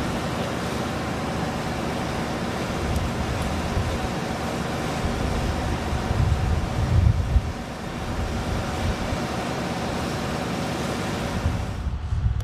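Steady jet aircraft noise on an airfield flight line: a continuous hiss with a faint steady whine. A louder low rumble swells about six to seven seconds in, and the high hiss drops away near the end.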